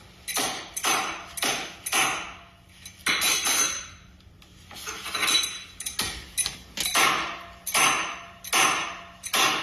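An adjustable wrench striking the glass screen of a Samsung Galaxy S7 edge again and again: about a dozen sharp knocks of metal on glass, each fading quickly, with short gaps between them. The blows are cracking the Gorilla Glass screen.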